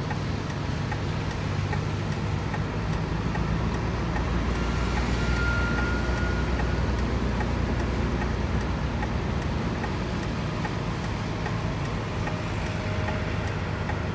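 Road traffic: vehicle engines running with a steady low hum that swells in the middle, with a brief high tone about five seconds in.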